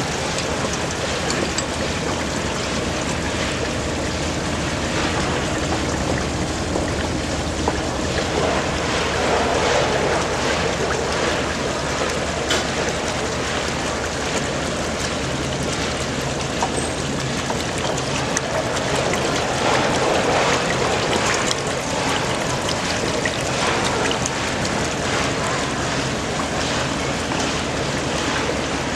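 Shaking table (gravity table concentrator) running: a steady wash of water flowing over the deck, over a low steady hum from the drive, with scattered faint clicks.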